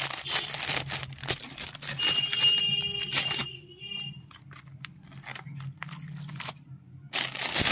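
Clear plastic cellophane wrap on a boxed lipstick set crinkling and rustling as it is handled and pulled open, with a short high tone about two seconds in. The crinkling thins to a few scattered clicks in the middle and picks up again near the end.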